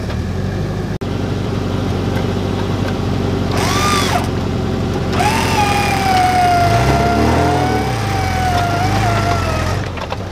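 Off-road 4x4's engine running steadily, revving up and back down about seven seconds in, with a long high whine over the second half while the vehicle works nose-down in a deep ditch.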